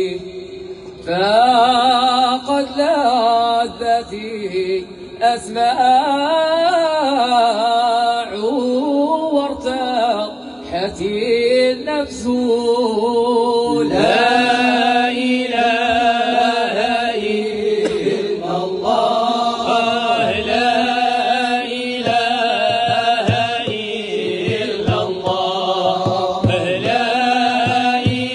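Moroccan Sufi madih, devotional praise chanting: a male voice singing long, ornamented lines with wavering pitch and sustained held notes.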